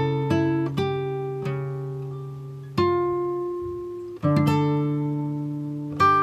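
Background music of plucked-string notes and chords, each starting sharply and ringing out as it fades, with new chords struck about three seconds in, again just past four seconds, and near the end.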